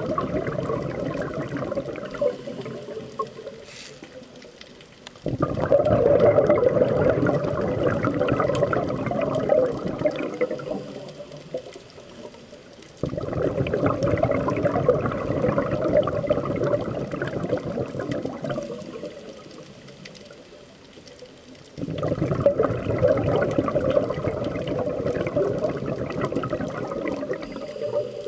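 A scuba diver's exhaled breath bubbling out of the regulator, recorded underwater. Each breath is a bubbling rush that starts abruptly and fades over several seconds, about every eight seconds: one is fading at the start and three more follow.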